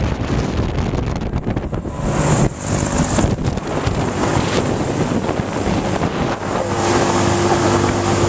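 Wind rushing over the microphone on a Mondial Turbine thrill ride, with the ride's machinery running. A steady hum comes in about seven seconds in.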